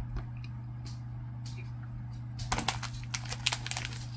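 A person chewing a crunchy Oreo cookie: a quick, irregular run of crackly crunches starts about halfway through, over a steady low hum.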